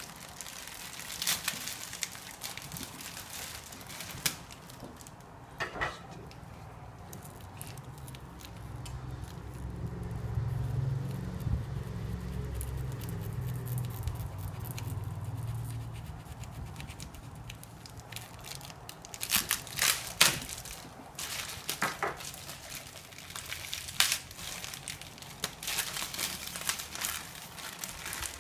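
Plastic packaging wrap being pulled off and crinkled around a lever espresso machine's group head, with scattered crackles and small clicks, busiest toward the end. A low hum rises and falls through the middle.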